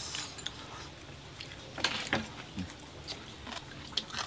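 Sounds of people eating at a table: scattered light clicks of chopsticks against porcelain bowls and dishes, with a sip from a bowl at the start and soft mouth sounds of chewing.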